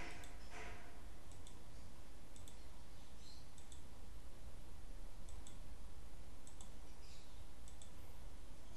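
Computer mouse button clicked again and again, about once a second, each a short tick, often a quick double of press and release, as objects are picked one at a time. A steady low hum lies underneath.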